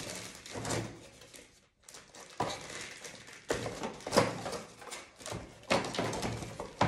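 Packaging being handled during an unboxing: plastic rustling with several sharp clicks and knocks, the loudest a little after four seconds in.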